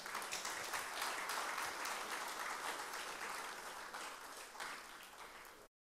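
Congregation applauding: a dense patter of many hands clapping, easing slightly and then cutting off suddenly near the end.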